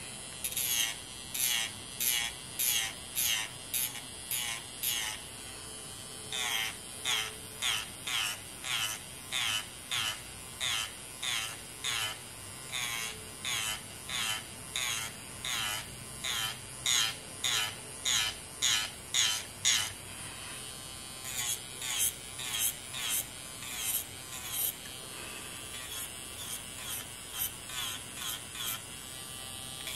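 Electric nail file (e-file drill) running, its whine dipping in pitch in rapid strokes about two a second as the bit grinds down the gel on the nails. There is a short break about two-thirds through, and the strokes are less distinct near the end.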